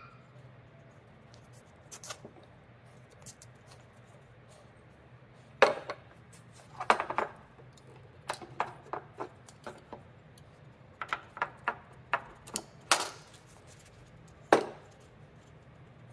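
Scattered knocks and clicks from handling wooden mallet pieces and cord on a wooden workbench: a few sharper wooden knocks about six, seven, thirteen and fourteen and a half seconds in, with lighter taps and ticks between.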